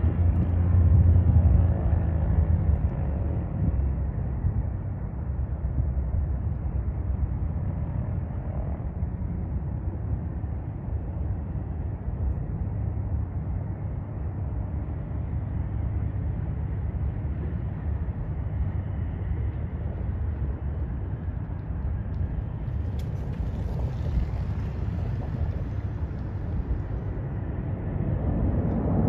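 A light propeller plane's piston engine at takeoff power, a low drone that is loudest in the first few seconds. It fades into a steady low rumble as the plane climbs away.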